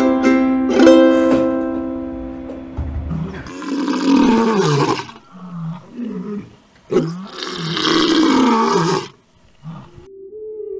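A ukulele chord is strummed and rings out, fading over the first couple of seconds. Then a lion roars: two long, loud roars with short grunts between them.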